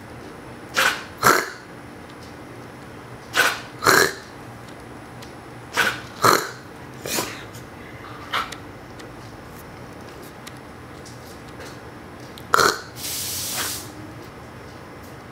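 A person and a Siberian husky trading short coughs, mostly in quick pairs about half a second apart, several times over. Near the end comes a short breathy hiss.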